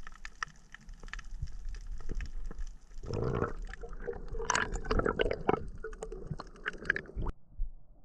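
Underwater sound picked up through a GoPro housing: scattered crackling clicks, then from about three seconds in water swishing and gurgling around the camera as the diver swims, cutting off abruptly near the end.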